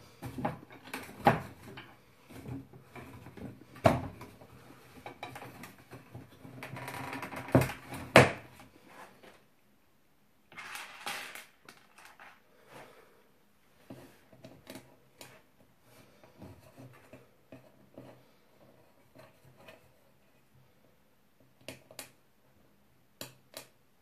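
Wooden slats and dowels of a clothes drying rack knocking and clicking as they are handled and lined up by hand. There are several louder knocks in the first eight seconds and a brief rustle around eleven seconds, then only sparse light clicks.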